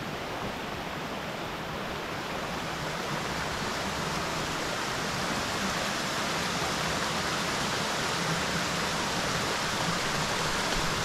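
Mountain creek water rushing steadily, a little louder after about three seconds.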